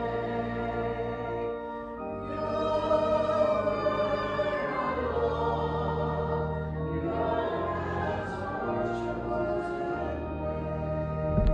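Hymn singing over sustained church organ chords, the organ holding low notes beneath the wavering voices. A brief knock near the end.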